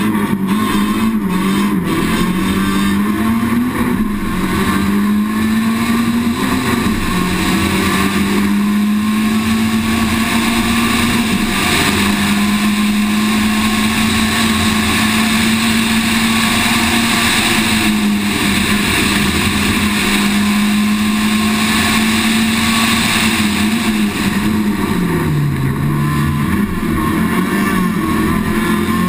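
Citroën Saxo VTS rally car's four-cylinder engine, heard onboard. It revs at the start line, then pulls hard up through the gears, its pitch climbing and dropping back at each upshift. It eases off briefly a few seconds before the end, then picks up again.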